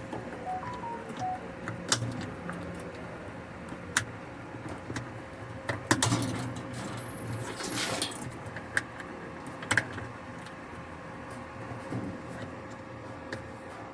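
Scattered metallic clicks and knocks of springs and parts being handled and snapped into place while a washing machine's drive mechanism is reassembled, over a faint steady hum.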